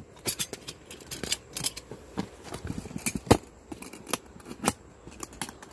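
Metal latches on a stacking plastic rolling toolbox clicking open and the plastic case knocking as its sections are separated. It is a string of sharp clicks and knocks, the loudest about three seconds in.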